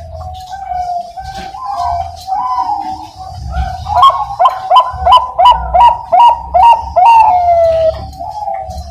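Zebra dove (Bangkok-line perkutut) cooing: a low warbling coo, then from about four seconds in a quick run of about nine sharp coo notes that ends in a long falling note.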